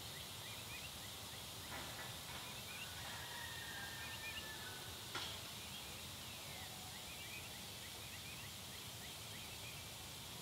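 Faint outdoor ambience with many short, soft bird chirps scattered throughout and a thin descending whistle about six seconds in. A single sharp click comes about five seconds in.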